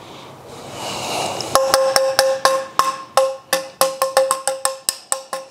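Detached side-by-side shotgun barrels being tapped in a ring test, a quick uneven run of about five taps a second starting about a second and a half in. Each tap gives a short pitched clink that dies away at once, sounding dead with no ring to it: the sign of a loose rib, here the bottom rib, whose solder joint has failed.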